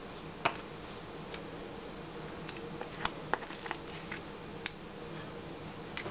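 A metal spoon scooping hummus from a small tub, making a few light scattered clicks and scrapes against the container, over a faint steady background hum.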